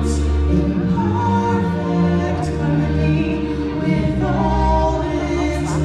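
Stage-show music with a choir singing long held notes, with a few sharp hits in the accompaniment.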